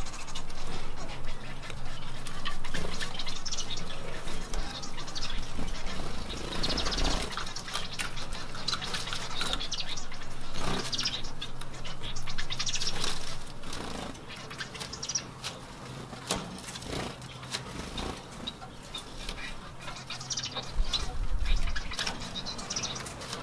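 Caged Bengalese (society) finches chirping and calling on and off, with scattered clicks and rustles as they hop and move about the cage.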